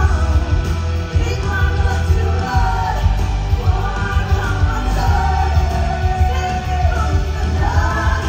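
Live show music: an amplified violin melody gliding over a backing track with a heavy, steady bass.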